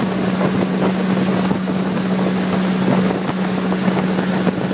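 Small boat's outboard motor running steadily under way, a constant drone, with wind buffeting the microphone.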